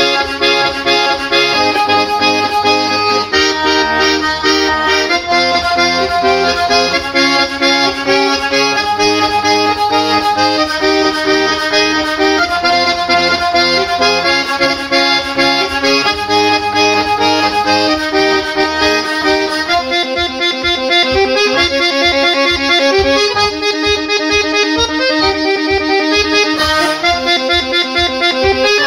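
A small wooden button accordion playing a lively folk tune: melody on the treble buttons over a bass accompaniment. About two-thirds of the way through, the bass changes to short, evenly spaced beats.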